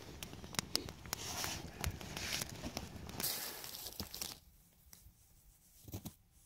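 Small twig campfire crackling with many sharp pops for about four seconds. Then it drops away suddenly to near quiet, with a couple of soft crunches of a hand working in snow near the end.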